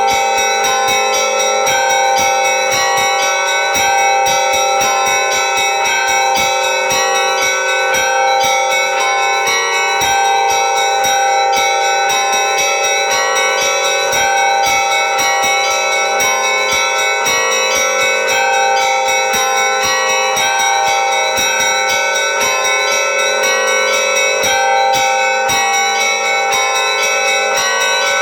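Church bells ringing a continuous peal: many bells of different pitches are struck in quick succession over steady, sustained ringing tones.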